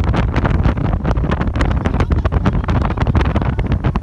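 Rigid inflatable motorboat under way, heard as a steady low rumble with wind buffeting the microphone throughout.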